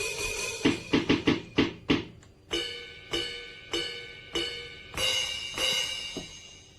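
Sampled sounds from a MARVTOWN silicone electronic drum set. A cymbal rings on, then comes a quick run of tom hits. Four evenly spaced ringing hits follow, about 0.6 s apart, and two cymbal crashes ring out near the end.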